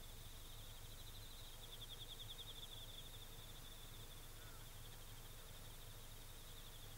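Faint autumn crickets trilling continuously in a fast, even pulsing, a little louder about two seconds in, over a low steady hum.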